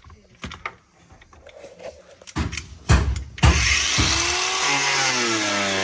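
A few knocks, then about three and a half seconds in a power tool starts and runs steadily while cutting material away. Its pitch sags and recovers under load.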